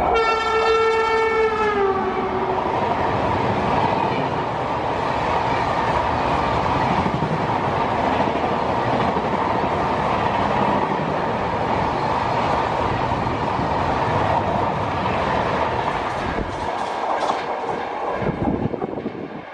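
WAP-7 electric locomotive's horn sounding for about two seconds, its pitch dropping as the locomotive passes, followed by the steady rush and rumble of passenger coaches running through at speed, with a few wheel clicks near the end.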